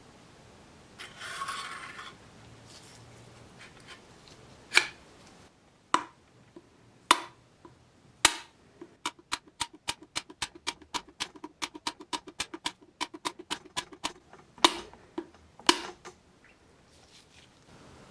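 Hard clicks and knocks from handling the restored bayonet scabbard: a brief rustle, a few single knocks, then a quick run of about five clicks a second for some five seconds, ending in two louder knocks.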